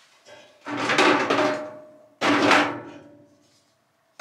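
Metal grill grates set down into an electric grill's cooking compartment: two loud clanks, about a second in and again just over a second later, each fading over about a second, the first leaving a faint ringing tone.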